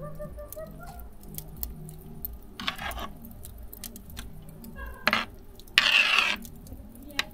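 A metal spoon clinking and scraping against an aluminium pot while foam is skimmed off boiling fish broth: a few separate clicks, then a louder scraping clatter about six seconds in.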